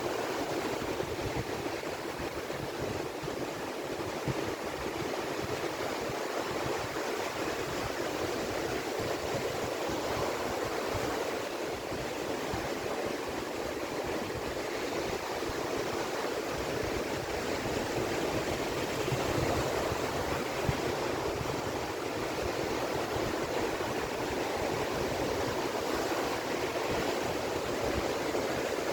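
Ocean waves breaking and washing onto the shore in a steady, continuous wash of surf, swelling slightly about twenty seconds in.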